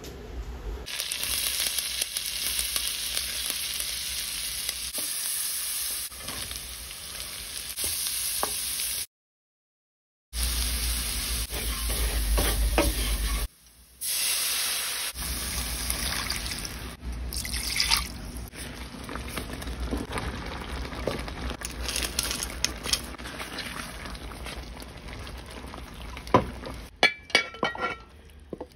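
Butter and then diced carrots and celery sizzling in a hot stainless steel pan, in several clips with short silent breaks. Near the end there are a few sharp clinks with a brief ringing, as a spoon strikes a glass casserole dish.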